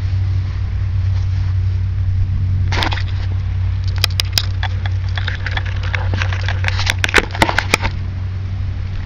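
A motor running steadily with a low, even hum. Clusters of sharp clicks and scrapes come about three seconds in, again around four seconds, and several more near the end.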